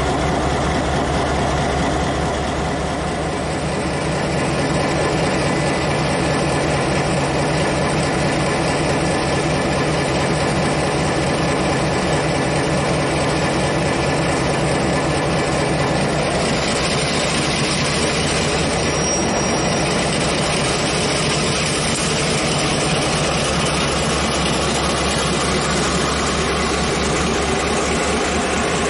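Diesel-electric freight locomotive engine running directly below with a steady low throb as the train starts to pull slowly out of the station. The engine gets louder about four seconds in, and a hiss joins about halfway through.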